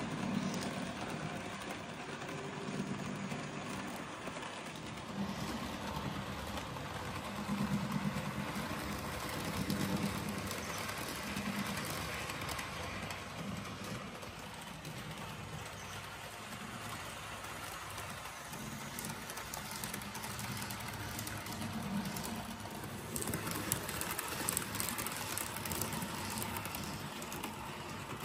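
N scale model train, a Korail locomotive pulling Mugunghwa-class coaches, running on the track. Its motor and wheels make a steady rattling hiss, with a low hum that swells and fades every second or two.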